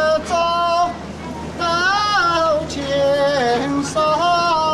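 A gondola rower singing a Chinese folk song unaccompanied, holding long high notes that slide up and down, in short phrases with brief breaths between them.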